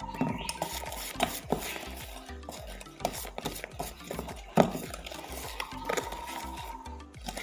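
Wire balloon whisk beating cake batter in a stainless steel pot, its wires clattering and scraping against the metal sides in quick, irregular strokes, with one louder knock a little past halfway.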